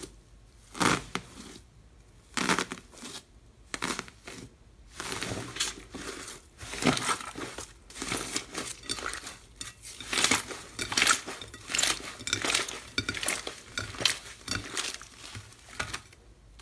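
Aluminium foil stretched over a bowl of slime crinkling under pressing hands, in separate crackles every second or so. It turns into a dense run of crackling and squishing as the slime is squeezed and kneaded by hand.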